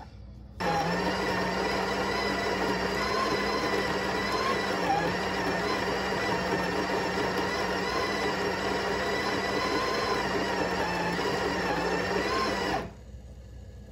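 Breville Smart Grinder's conical burr grinder motor running steadily as it grinds coffee beans into a portafilter. It starts about half a second in and cuts off about a second before the end.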